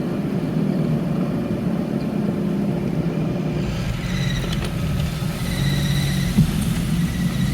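Road traffic: car engines running with a steady low rumble, and a brief sharp sound near the end.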